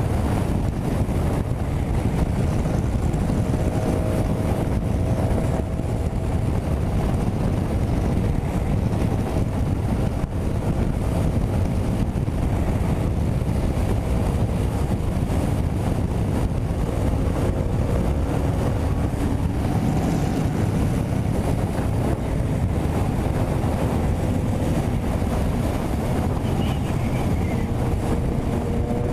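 Heavy wind noise on the microphone of a Yamaha MT-07 ridden at highway speed, about 120–145 km/h. The bike's parallel-twin engine drones steadily underneath in a high gear.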